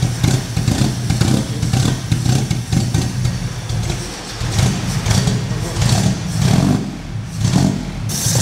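Sunbeam Alpine Series 3 GT's 1600 four-cylinder engine running just after being started, its note rising and falling with blips of the throttle.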